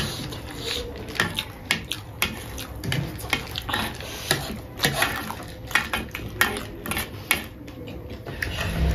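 Metal spoons scraping and clicking irregularly on paper plates as several people eat chatpate, a crunchy spicy puffed-rice snack, with chewing and crunching mixed in.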